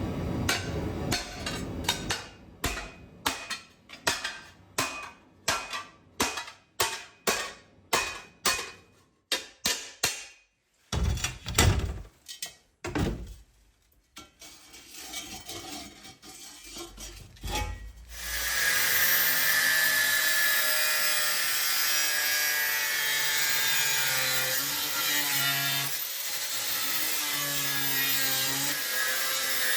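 Hammer blows on the flattened steel of a cut-open gas cylinder, about two a second, with a few heavier, irregular knocks after. About two-thirds of the way in, a power tool starts running steadily on the steel.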